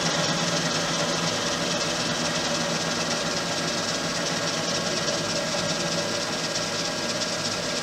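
Gardner 2H30-30 double disc grinder running with its right grinding head turned on: a steady machine hum and whir, with a low hum that drops out a little over a second in.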